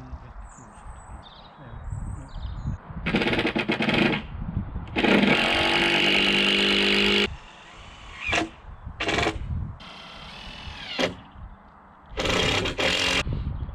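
A power drill-driver driving screws into timber in about five separate bursts. The longest, a steady whine of about two seconds, comes in the middle; shorter spurts follow near the end.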